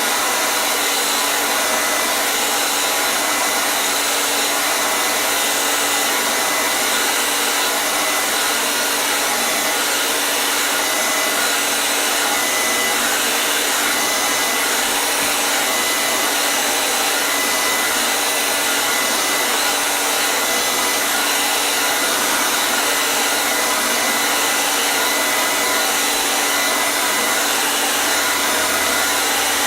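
Hair dryer running continuously, a steady rushing of blown air with a faint high whine from its motor and fan.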